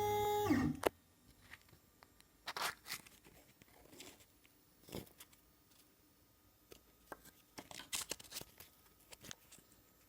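CNC router spindle whining at a steady pitch, then winding down in pitch and stopping within the first second. After it come faint, scattered clicks and rustles.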